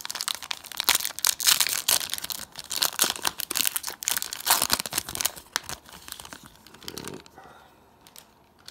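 Foil wrapper of a Topps 2021 Series 1 baseball card pack crinkling and being torn open by hand, a dense crackling that dies away about seven seconds in.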